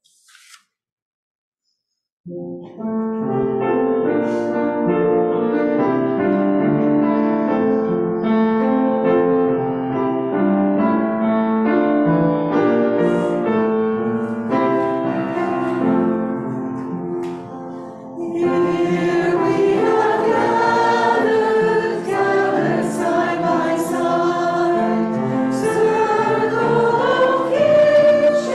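A congregational hymn starts after a brief pause. An instrumental introduction begins about two seconds in, and the congregation's voices come in singing with it at about eighteen seconds.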